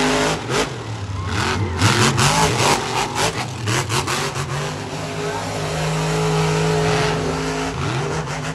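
Monster truck engine revving hard, its pitch climbing and falling repeatedly, with sharp bangs through the first half as the truck goes over a pile of junked cars. Near the end the engine holds a steadier note as the truck drives off along the track.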